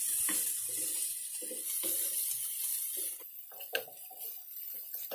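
Eggs and cauliflower sizzling in hot oil in a frying pan, with a spoon knocking and scraping against the pan as it stirs. The sizzle drops away about three seconds in, leaving mostly the spoon's clicks and scrapes.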